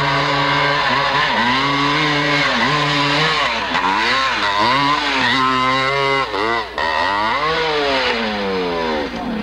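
Dirt bike engine revving hard on a steep hillclimb, its pitch swinging up and down again and again as the throttle is worked and the rear wheel loses and finds grip. Near the end the revs slide steadily down as the bike bogs near the top of the hill.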